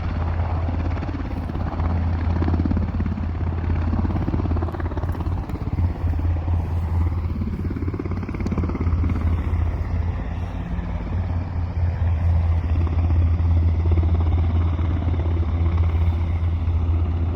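Sikorsky S-92 helicopter running: a steady low drone with a constant hum.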